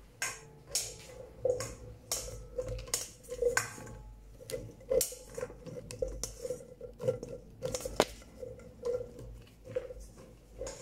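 A black plastic spoon stirring a stainless steel mixing bowl full of small soft-plastic toy figures: irregular clinks and scrapes, one or two a second, with the steel bowl ringing after each knock.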